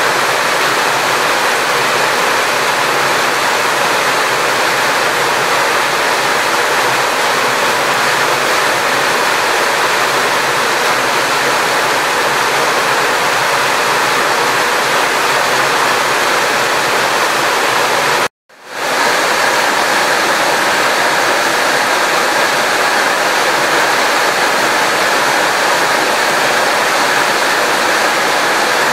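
Steady loud rush of water, an even hiss with no pauses except a brief dropout about two-thirds of the way through.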